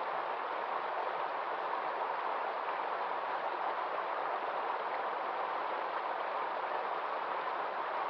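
Mountain stream rushing over rock ledges and small cascades: a steady, unbroken rush of water.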